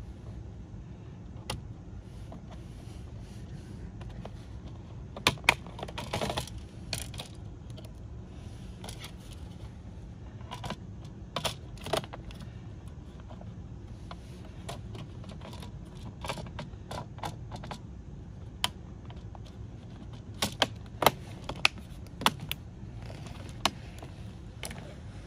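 Latches of a Lenovo ThinkPad X1 Carbon Gen 9 bottom cover clicking into place as hands press the cover down around its edges: scattered sharp clicks, singly and in small clusters, over a steady low hum.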